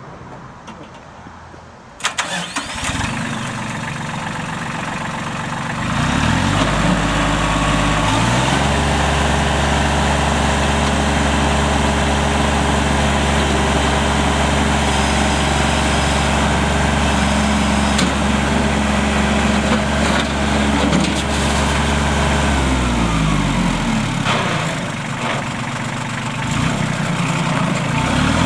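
New Holland TC30 tractor's three-cylinder diesel engine starting about two seconds in and idling briefly, then revving up to a steady higher speed for much of the time before dropping back to idle near the end and beginning to rev again.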